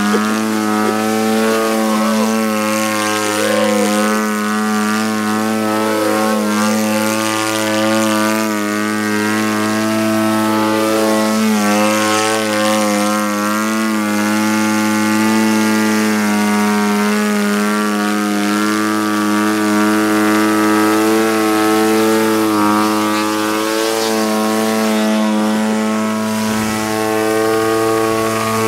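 50cc two-stroke gasoline engine of a large radio-controlled Edge 540T aerobatic plane running at a steady, high throttle, its pitch rising and falling slightly as the plane hovers and climbs on its propeller.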